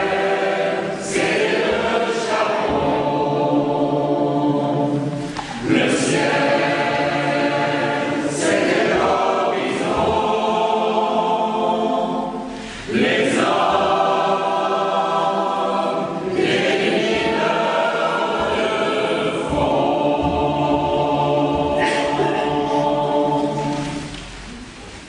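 Choir and congregation singing a hymn together in a church, in long held phrases with short breaks between them. The singing fades out near the end.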